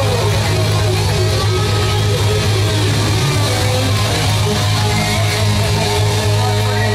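Live rock band playing an instrumental passage: electric guitars over bass and drums, loud and continuous.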